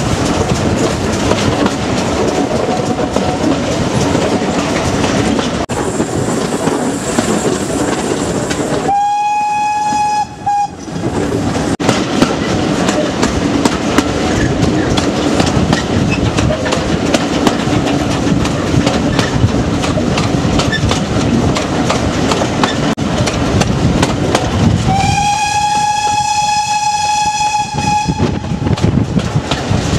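Steady rattle and clatter of a steam-hauled passenger train's coach wheels over the rails, heard from a coach. A Great Western steam locomotive's whistle sounds twice: a short blast about nine seconds in and a longer one of about three seconds near the end.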